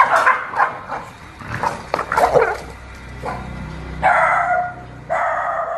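A dog barking and yelping in alarm, frightened by a fake tiger, with louder barks about four and five seconds in.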